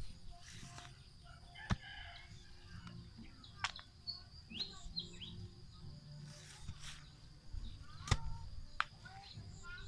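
A hoe chopping into clay soil while a hole is dug: several sharp strikes a few seconds apart, the loudest near the end. Birds chirp in the background.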